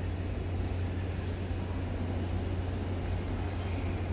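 Steady low hum and even background noise of an underground railway station platform, with no train passing.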